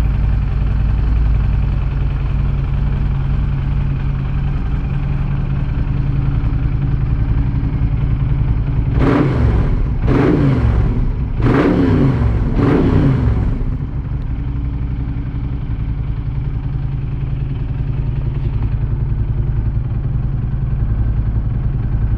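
Moto Guzzi V11 Corsa SP's air-cooled V-twin, fitted with a hot camshaft, idling steadily, with four quick blips of the throttle about nine to thirteen seconds in.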